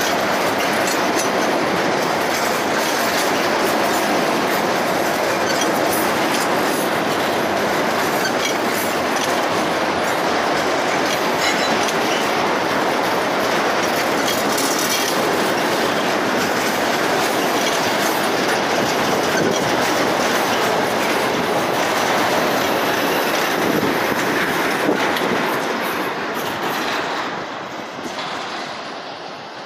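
Loaded freight train of hopper cars and boxcars rolling past close by, a steady rumble with the wheels clicking over the rail joints. Near the end the last wagon passes and the sound fades as the train moves away.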